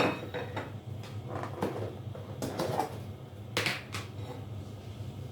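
Household objects being handled: a sharp knock, then a run of lighter clicks and knocks and two brief scraping rustles, like cupboards, drawers or kitchenware being moved about, over a low steady hum.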